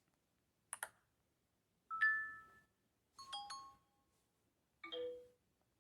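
Huawei smartphone's speaker playing short alert-tone previews, three different chimes one after another: a two-note chime, then a quick run of several notes, then a chime ending on a low note. A screen tap clicks about a second in.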